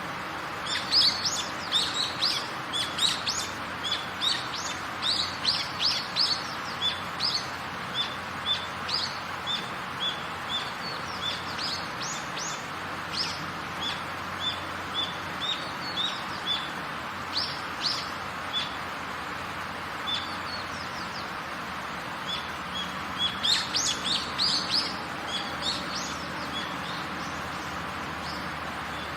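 Steady rain hiss with birds chirping over it: many short, high chirps, thickest in the first several seconds and again about 23 seconds in, sparser in between.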